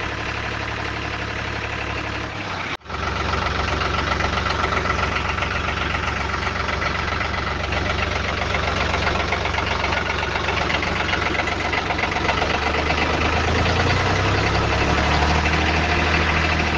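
Tractor engine sound running steadily. It cuts out for an instant about three seconds in and comes back slightly louder, and its note rises a little near the end.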